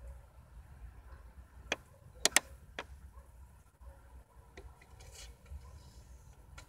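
A few sharp mechanical clicks from a Philips CDC3 car CD changer in disc-loading mode, the loudest a quick pair about two seconds in. A low steady hum sits beneath them.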